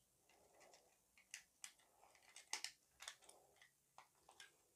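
Faint, irregular clicks and light rattling of the plastic parts of a Transformers Studio Series Crankcase action figure as they are handled and clipped together during transformation.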